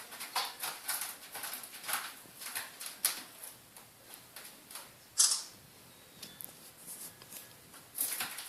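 Kitten clawing and batting at a toy mouse on a scratching tree: a run of irregular scratches and rustles, several a second at first, then sparser, with a loud scrape about five seconds in and another near the end.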